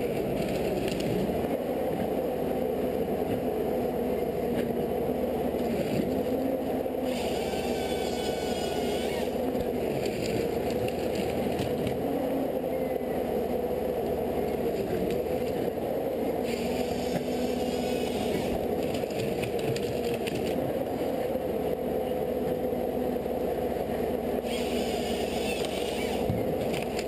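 A machine running steadily with a wavering hum, joined three times for a couple of seconds by a higher scraping whine.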